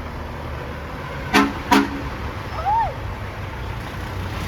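Truck horn giving two short toots about a second and a half in, under half a second apart, over the steady low rumble of passing traffic.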